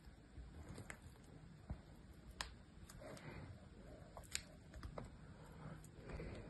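Utility knife blade carving dry, hard soap: soft scraping strokes with several sharp, crisp cracks as pieces snap away, the loudest about two and a half and four and a half seconds in.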